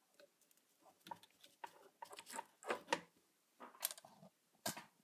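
Faint, irregular clicks and taps of small aluminium RC car steering housings and parts being handled and fitted by hand, about a dozen spread over a few seconds.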